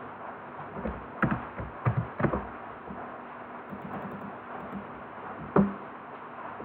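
Computer keyboard and mouse clicks: a quick run of sharp taps between about one and two seconds in, then one louder single click near the end, over a faint steady room hum.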